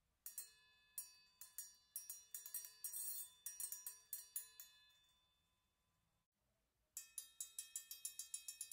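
Hanging circular saw blades struck by solenoid beaters, each strike ringing on with several bell-like overtones. An irregular run of strikes builds into a quick flurry, then rings away about five seconds in. After a short silence, a fast, even roll of strikes, about eight a second, starts on a blade near the end.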